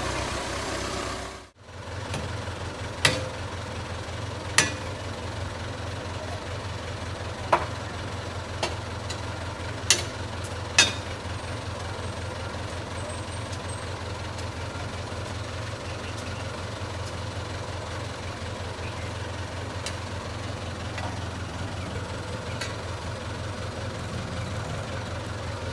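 JCB 3CX backhoe loader's diesel engine running steadily, with a handful of sharp knocks over the first ten seconds or so.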